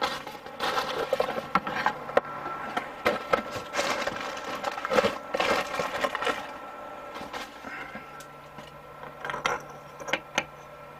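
Irregular rustling and clicking of a shower part and its packaging being handled and fitted. The sounds are busiest in the first six seconds, with a few sharp clicks later.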